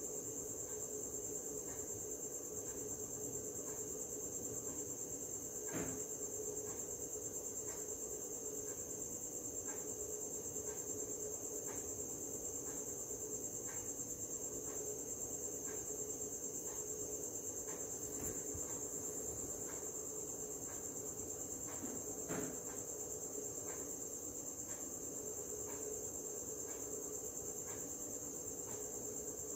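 A steady high-pitched insect trill with a low hum under it, faint regular ticks, and two soft knocks, one about six seconds in and one after twenty seconds.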